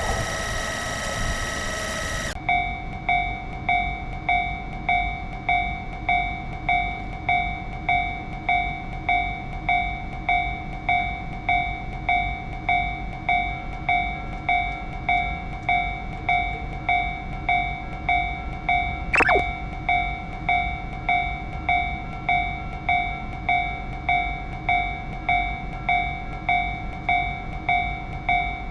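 Japanese railroad crossing alarm bell ringing in a steady, even rhythm of about one to two dings a second, after an abrupt cut from a noisier, whining sound about two seconds in. About two-thirds through, a single short sweep falls quickly in pitch.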